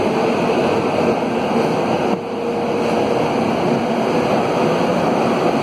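Alstom AS 02 steel-wheeled metro train running at speed, heard from inside the car: a steady rumble and hiss of wheels on rail, with a faint steady whine over the first half.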